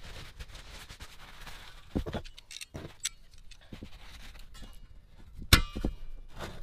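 Steel locking pliers and a rusty steel flame-gun tank handled and clamped, with scattered metallic clicks and knocks and one sharp clank with a brief ring about five and a half seconds in.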